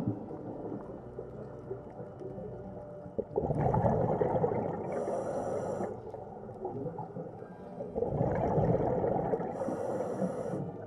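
Scuba diver breathing through a regulator underwater: two gurgling bursts of exhaled bubbles a few seconds apart, each ending in a short high hiss.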